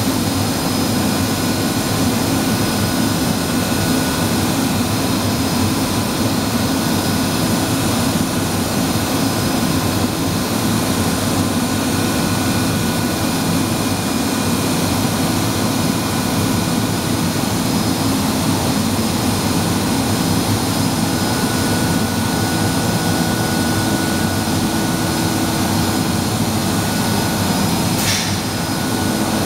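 Blown film machine running at its winder: a loud, steady industrial drone with several steady hum tones in it. A brief hiss comes near the end.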